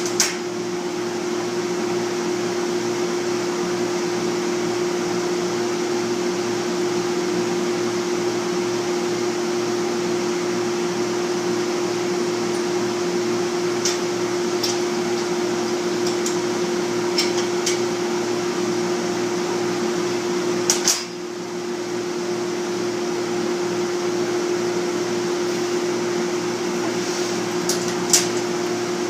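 Lathe running with a steady motor hum and a fast low pulsing. A few sharp ticks come in the second half, and the sound dips briefly about two-thirds of the way through.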